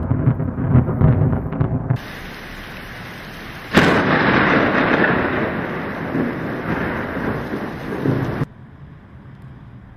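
Thunderstorm sound: low rolling thunder and rain, with a sharp crack of thunder about four seconds in that gives way to heavy hissing rain. The sound changes abruptly several times and drops to quieter rain near the end.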